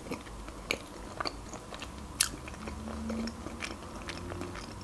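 A mouthful of creamy pasta shells being chewed: soft wet mouth sounds with scattered sharp clicks, the sharpest about two seconds in.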